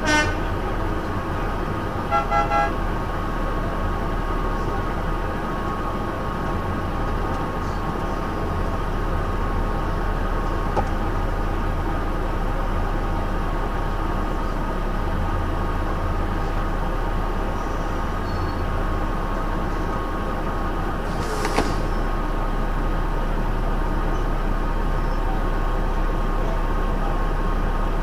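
Scammell S26 tractor unit's engine running steadily, heard from inside its cab as it moves along slowly. A horn gives a short toot at the very start and a quick run of three toots about two seconds in. There is a brief hiss about three-quarters of the way through.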